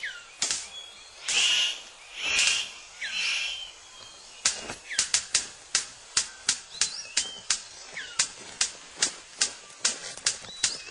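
Male superb bird of paradise's courtship display: a few harsh buzzing calls, then from about four seconds in an even run of sharp clicks, about two to three a second, as he dances before the female. Short whistled bird notes sound now and then.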